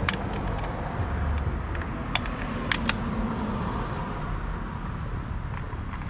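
A few sharp plastic clicks, about two to three seconds in, as small cover caps are pressed into the screw holes beside a tail light, over a steady low rumble.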